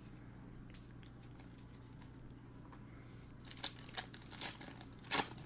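Donruss Optic basketball card pack wrapper crinkling and tearing as it is ripped open by gloved hands, a few short crackles in the second half over a faint steady hum.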